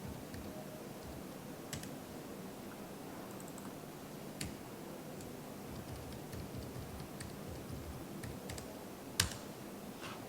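Scattered computer keyboard keystrokes and clicks over a low steady room hum, with irregular gaps between them and one sharper click near the end.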